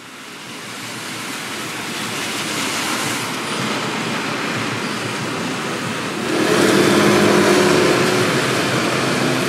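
Steady rain and traffic on a wet city street, fading in. About six seconds in it swells louder as a vehicle passes over the wet road.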